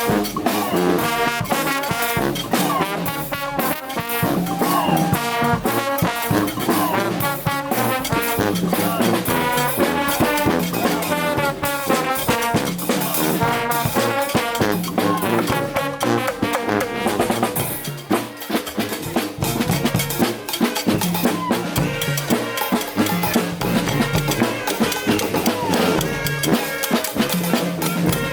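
Street brass band playing: trombones and trumpets over drums with a steady beat.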